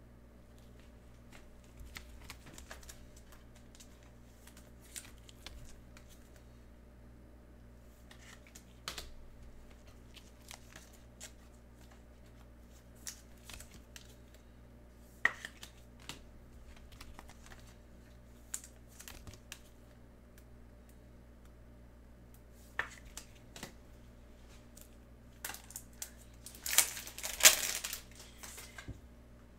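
Trading cards and their packaging being handled: scattered soft clicks and rustles as cards are slid and stacked, with louder crinkling and tearing of wrapper near the end.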